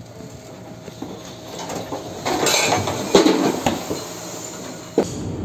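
Loose objects and fittings rattling and clattering inside a ship's cabin as the ship rolls in a storm. It is fairly quiet at first, then turns into a run of clattering knocks about two seconds in, with the loudest strikes just past the middle and one sharp knock near the end.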